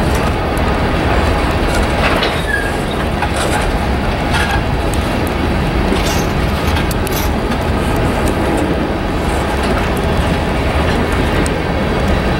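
Freight train of covered hoppers and tank cars rolling steadily past, a continuous rumble of wheels on rail with scattered clicks as the wheels cross rail joints. A couple of brief high wheel squeaks come about two seconds in and again about four and a half seconds in.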